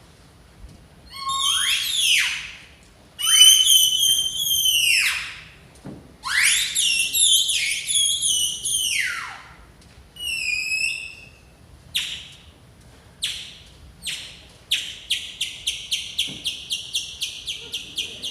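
Bird-like whistling: long warbling calls that swoop up and down, then short falling chirps that speed up into a rapid trill of about five a second near the end.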